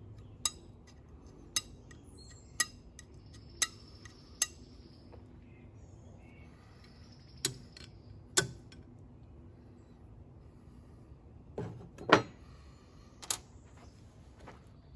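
A flint struck against the edge of an old Nicholson file: sharp clicks about once a second for the first few seconds, then a few more spaced strikes, the loudest about twelve seconds in. The strikes test whether the file's steel is hard enough to throw sparks for use as a fire steel.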